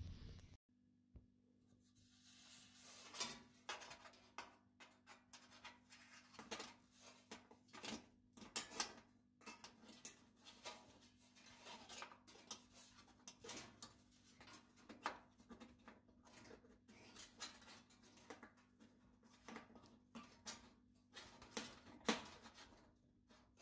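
Faint, irregular clicks, taps and small knocks of parts and tools being handled, a few sharper ones standing out, over a low steady hum.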